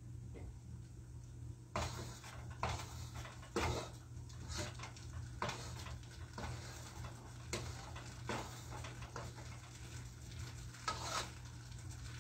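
Yellow plastic spatula stirring and turning spaghetti in a nonstick pot. It gives irregular soft knocks against the pot about once a second, over a steady low hum.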